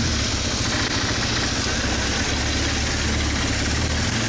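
ATV engine running steadily as the four-wheeler rides along, a low, even rumble.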